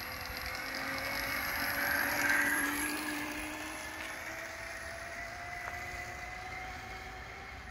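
Whine of a homemade friction-drive electric scooter's brushless outrunner motors, climbing slowly in pitch as the scooter accelerates away down the street. A broad swell of road and wind noise peaks about two seconds in.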